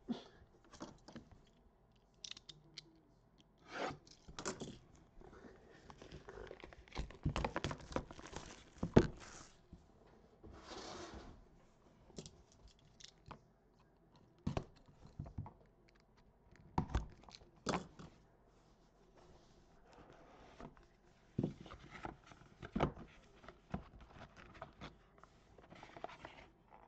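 Plastic wrap and tape being cut and torn off a cardboard trading-card hobby box with a small blade. Scattered crinkles, scrapes and light knocks come from the box being handled, with one longer scraping tear about eleven seconds in.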